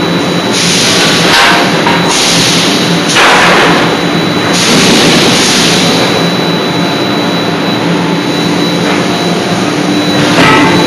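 C92K-80KJ CNC hydraulic closed-die forging hammer at work on a red-hot billet: a loud steady machine hum with several sharp-starting rushing blasts about a second long, the strongest about three seconds in and another near the end.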